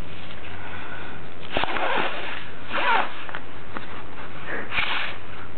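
Three short puffs of breath blown into the hole of a folded paper water-bomb balloon to inflate it.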